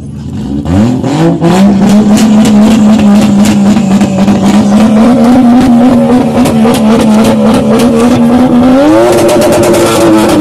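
Modified drift car's engine revved hard from idle about half a second in and held at high revs, very loud, with rapid crackles from the exhaust; about nine seconds in it is pushed up a step higher and held again.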